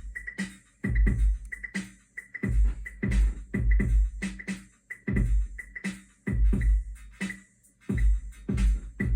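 Eurorack drum pattern from a Bitbox sampler triggered by a Div Skip rhythm module with Stolperbeats groove timing: deep kicks, clusters of short hi-hat-like ticks and sharp snare-like hits in an uneven, stumbling groove.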